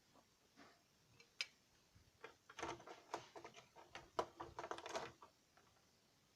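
Faint clicks and rattles of plastic LEGO parts being handled, clustered from about two to five seconds in.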